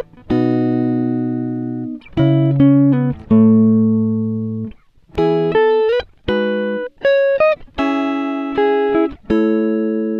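Background music: a guitar plucking single chords and notes that ring out and fade, some with sliding pitch.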